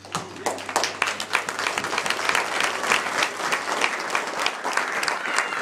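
Crowd applauding: dense clapping breaks out suddenly and keeps on steadily.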